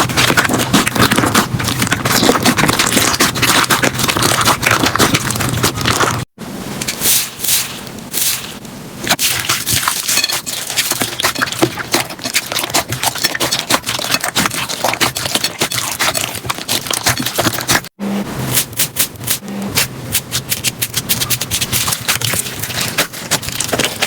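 Slime being squeezed and worked, a dense run of small crackles and pops. The sound breaks off briefly twice, about six seconds in and near eighteen seconds, and then carries on.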